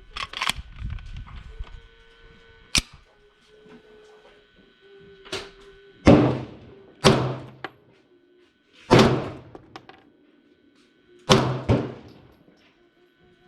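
Gunshots, about eight, fired at uneven intervals, each a sharp crack with a short echo; two come in quick succession near the end.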